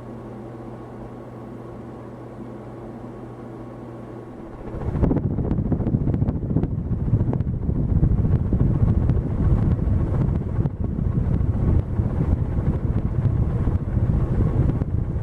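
Lasko ceiling fan with an all-metal motor housing, its motor humming steadily. About five seconds in, a much louder, gusty rumble of air buffeting the microphone takes over.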